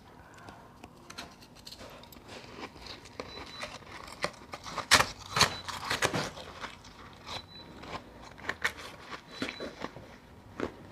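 Powdery frozen ice being bitten and chewed close to the microphone: irregular crunching and crackling, loudest about five seconds in.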